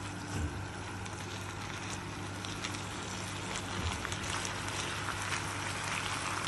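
Diced chicken sizzling in a non-stick frying pan while a silicone spatula stirs it, over a steady low hum. The sizzle grows louder and more crackly toward the end.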